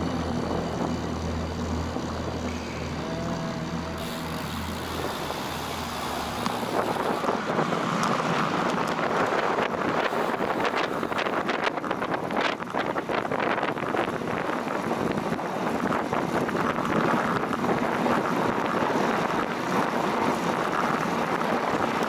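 Wind rushing over the microphone of a camera on a moving road bike, getting louder and rougher with frequent crackles about seven seconds in as the pace picks up.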